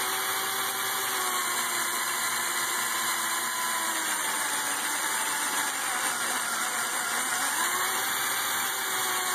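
Lego Technic CVT running on its electric L motor, plastic gears whirring steadily. The whirr sags in pitch as the output is held back by hand and loads the motor, with a deeper dip about seven seconds in that climbs back up.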